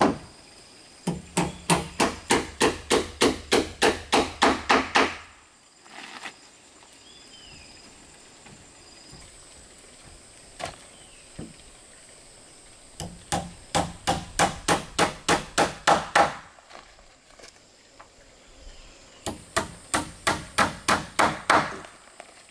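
Hammer driving nails into wooden floorboards: three runs of quick, even blows, about four a second, with short pauses between the runs.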